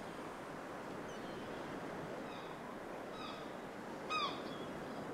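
A steady rushing ambient noise with a few short, high, arching animal cries over it. The cries begin about halfway through and the loudest comes about four seconds in.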